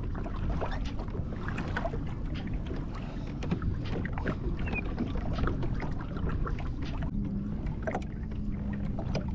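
Water lapping and trickling against the hull of a moving fishing kayak, with many small splashes and ticks over a steady low rumble. A faint steady hum comes in about seven seconds in.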